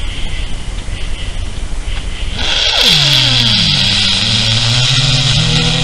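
A long, loud fart about two seconds in: a buzzing tone that drops quickly in pitch, then holds low for about three seconds. Before it there is only a steady hiss.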